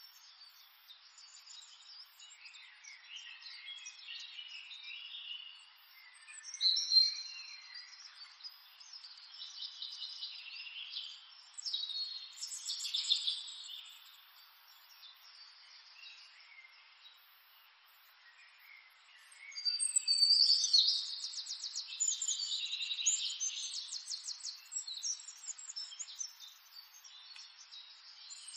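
Wild birds calling and chirping, several calls overlapping and coming and going, with a burst of rapid repeated trilling notes about two-thirds of the way through.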